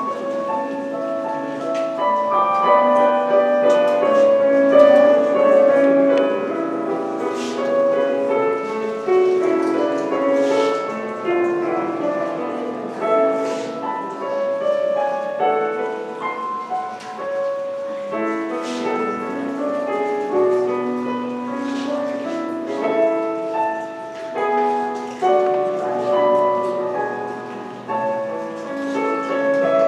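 A keyboard instrument playing a slow, quiet melody over held chords, the notes changing about once every half second to a second.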